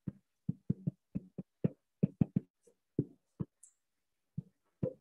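Stylus tapping and knocking on a tablet screen while handwriting: a quick, irregular run of short, dull taps, with a brief pause about three-quarters of the way through.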